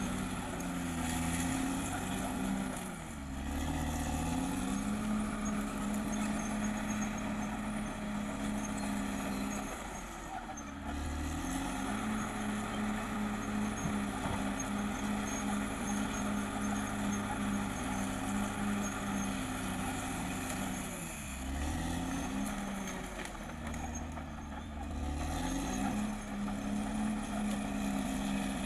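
Caterpillar D6R XL bulldozer's diesel engine working steadily. Its pitch sags and then climbs back about four times as the engine takes load and recovers.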